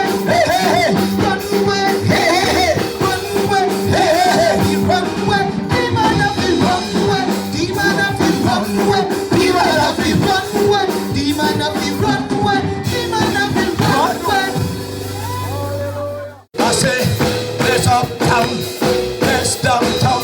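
Gospel music with singing. It cuts off sharply about sixteen seconds in, then music starts again straight away.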